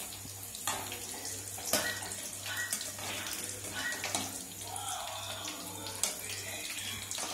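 Chicken pieces deep-frying in hot oil in a metal kadai, sizzling steadily, with a few sharp clinks of a wire-mesh skimmer against the pan as the fried pieces are scooped out.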